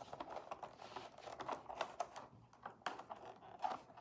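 Light, irregular plastic clicks and scraping as a green plastic strip is slid along the rim of a white plastic chick-brooder feed trough and pressed into place.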